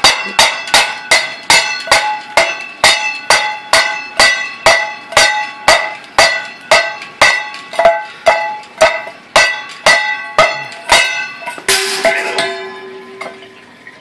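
Blue-and-gold macaw banging her metal food bowl against the cage perch, a ringing clang about twice a second, each hit ringing like a bell. Near the end the banging stops with a noisy clatter and a lower ring that fades.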